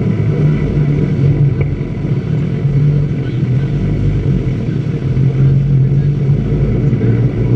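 Steady low rumble of wind on the microphone and the sea churning between two ships running close alongside at speed during underway refuelling.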